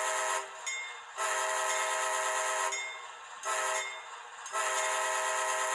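Sound-equipped HO scale GE AC44C6M model locomotive sounding its diesel air horn from its sound decoder: a steady multi-tone chord in separate blasts. A blast ends just after the start, then come a long blast, a short one and another long one, the grade-crossing signal.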